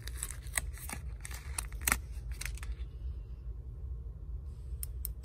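Small metal spoon and its chain clinking as it is slid out of a paper card package, with the paper rustling; the handling stops about three seconds in, then a couple of light metal clicks near the end.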